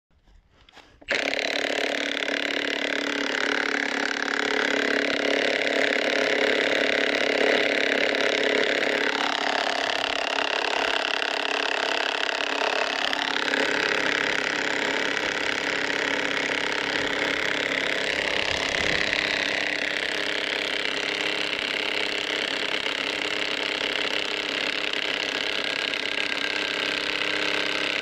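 Milwaukee cordless impact wrench hammering steadily as it drives the screw of a Forstreich TR30 mechanical felling wedge set in the back cut of a spruce. It starts suddenly about a second in and runs without stopping, its pitch wavering a little as the load changes.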